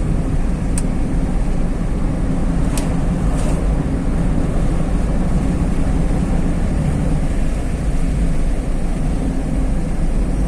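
A car driving on a highway: a steady low rumble of engine and tyre noise, with a few faint clicks in the first few seconds.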